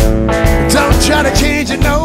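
A song played by a band with guitar, with a beat about twice a second; a short break between sung lines, with a bending melody line in the second half.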